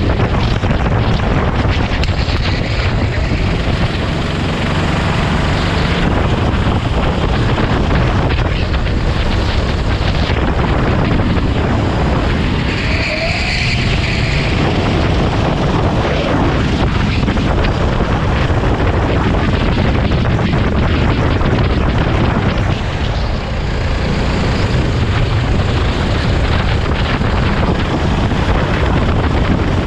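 Sodi RT8 rental kart's 390 cc single-cylinder four-stroke engine running under load, heard from the driver's seat, with heavy wind noise on the microphone.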